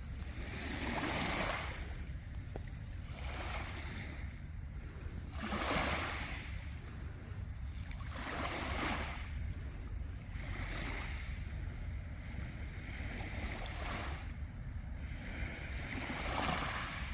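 Sea waves surging up and washing back over a beach of round pebbles, swelling roughly every two to three seconds, over a steady low rumble of wind on the microphone.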